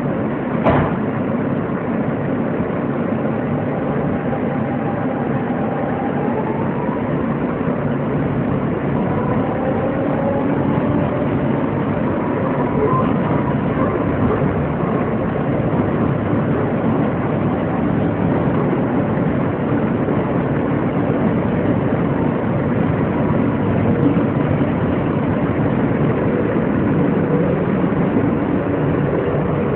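R160B subway car with Siemens propulsion running, heard from inside the car: a steady rumble of the wheels on the rails with a faint motor whine that rises in pitch for a few seconds and then holds steady. A single sharp knock about a second in.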